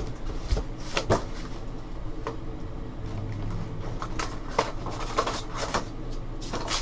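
A cardboard trading-card box and foil card packs being handled: scattered knocks, taps and rustles as the box is tipped and lifted to slide the packs out.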